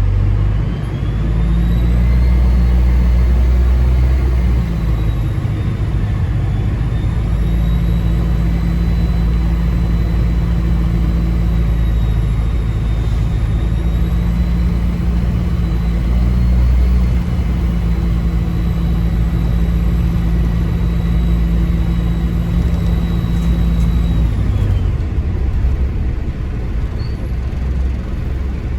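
Diesel bus engine running under way, with a high turbocharger whistle over it. The whistle rises about a second in, holds with a slight waver, and falls away near the end as the engine note drops.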